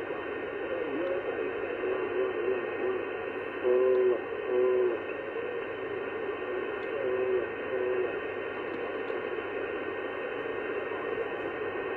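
sBitx transceiver receiving on the 11-metre band: a steady hiss of band noise, cut off above about 3 kHz, with weak, garbled voices fading in and out. The voices are strongest about four seconds in.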